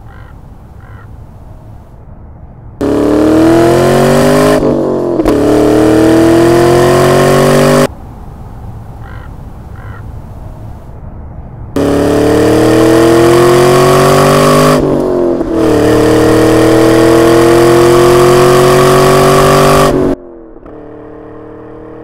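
Car with an aftermarket dual-tip performance exhaust accelerating hard twice. Each time the exhaust note climbs steadily in pitch, with a brief break for an upshift partway through, and each pull starts and cuts off abruptly. Near the end a quieter, steady engine note.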